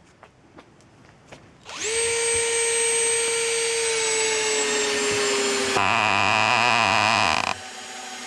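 Power drill starting about two seconds in and running with a steady whine that sags slightly in pitch. Near six seconds in it turns rougher and louder for about a second and a half, then drops lower and stops.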